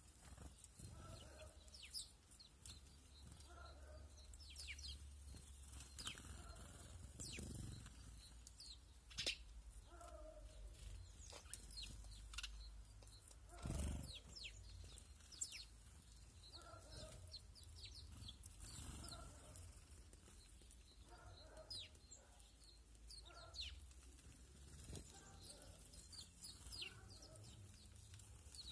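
Faint chirping of small songbirds: many short, high, falling notes. Underneath are lower animal calls every second or two, and there is a single thump about halfway through.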